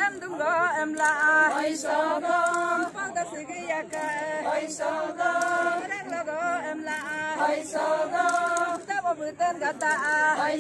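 A group of women singing together unaccompanied, a chant-like folk song in repeated short phrases, each settling onto a held note.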